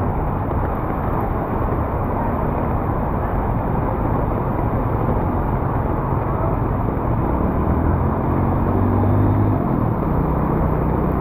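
Motor vehicle engine running with a low steady hum, which grows louder and shifts in pitch between about seven and ten seconds in, over a constant noisy street background.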